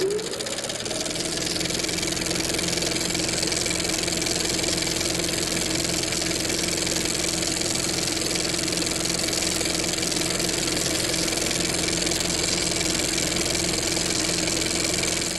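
Film projector sound effect: a steady mechanical whirr with a fast, fine clatter and a constant hum, its pitch finishing a rise in the first half second as it comes up to speed.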